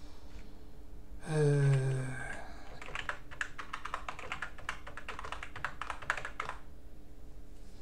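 Computer keyboard typing: a quick run of key clicks lasting a few seconds. Just before it, about a second in, a man makes a short wordless hum, the loudest sound here.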